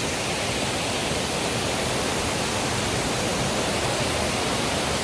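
Water cascading down the stepped walls of a large fountain pool, a steady, even rush.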